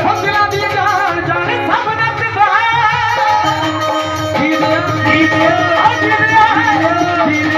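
Live folk music played over a PA system: a wavering melody line with singing over steady, rapid hand-drum percussion.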